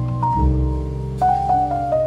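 Instrumental background music: a mellow melody of short notes stepping down in pitch over held bass notes.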